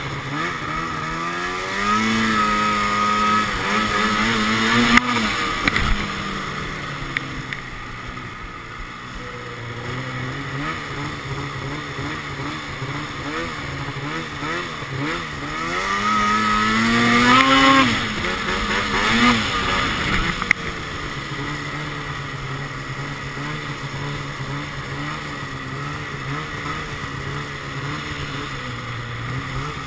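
Arctic Cat 2012 XF 800 snowmobile's two-stroke twin engine running through a Sno Stuff high-performance silencer. It revs up twice, about two seconds in and again about sixteen seconds in, rising in pitch and dropping back off the throttle each time. Over the last ten seconds it holds a steady, lower cruising note.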